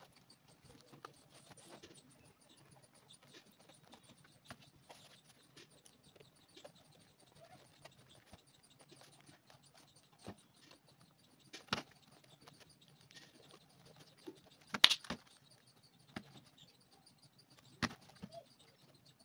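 Scattered light taps and clicks of a leather sandal with a rubber sole being handled and set down on a hard floor, the loudest a sharp knock about fifteen seconds in.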